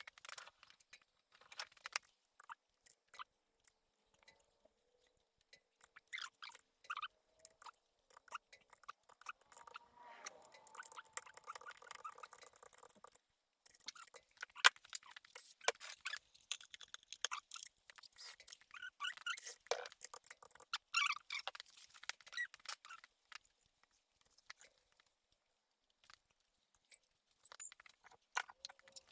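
Scattered light clicks, ticks and short scrapes of hand tools and metal transmission parts being handled, irregular rather than rhythmic.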